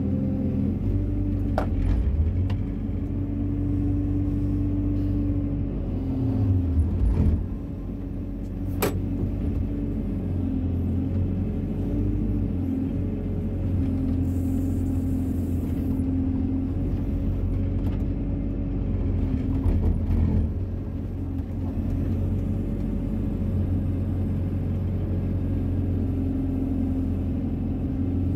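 Wheeled excavator's diesel engine running steadily, heard from inside the cab while the boom and bucket dig a trench, its sound swelling twice under load. A couple of sharp knocks stand out over the engine.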